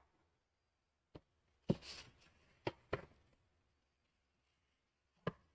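A few short knocks and scrapes as styrofoam packing inserts are handled and pulled against a cardboard box, about five in all with quiet gaps between them. The loudest comes a little under two seconds in.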